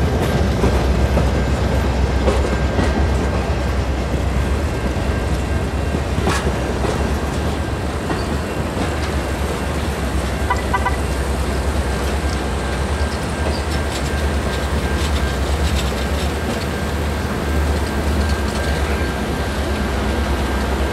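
Alaska Railroad passenger cars of the Denali Star rolling slowly past on the rails: a steady rumble of wheels on track with a faint thin high tone running under it, a single sharp clank about six seconds in, and a few short squeaks around the middle.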